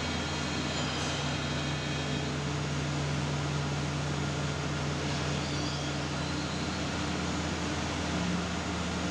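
Heavy CNC machine for steel bars running, a steady mechanical hum and whir of its motors and drives, with a new low hum note coming in near the end.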